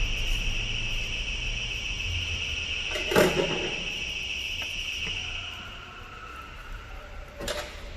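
Plastic electrical connectors being pressed and pulled free in a car's engine bay: two short clicking knocks, one near the middle and one near the end. A steady high-pitched whine runs behind them and gives way to a fainter, lower tone about two-thirds through.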